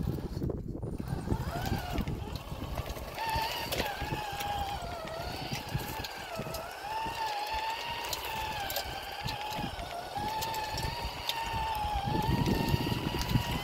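Small-scale RC crawler's electric motor and gears whining, the pitch wavering up and down with the throttle. The whine comes in about three seconds in, over a low rumbling noise and light ticks.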